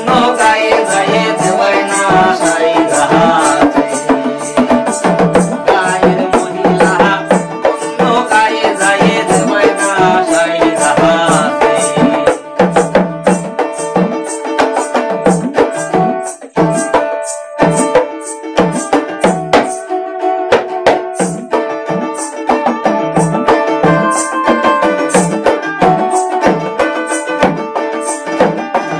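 Bengali jari folk song played live: a dotara plucked over a steady beat on a hand-played barrel drum. A voice sings a wavering melody for roughly the first twelve seconds, then the rest is an instrumental passage of plucked strings and drumming.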